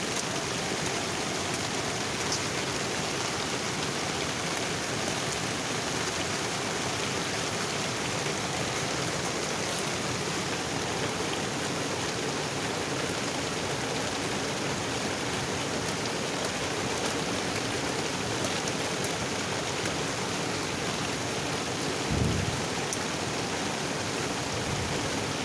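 Steady, even rush of water falling at a waterfall, with a brief low thump near the end.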